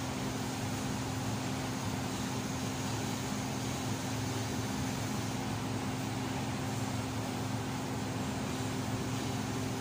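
TIG welding machine running: a steady hiss over a constant electrical hum, with no breaks.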